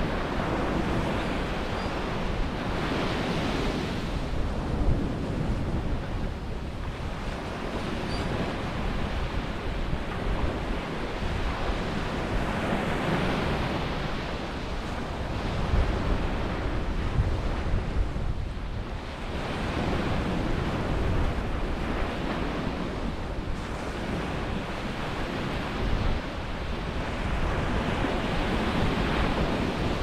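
Small surf breaking and washing up a sandy beach, a steady rush that swells and eases every few seconds, with wind rumbling on the microphone.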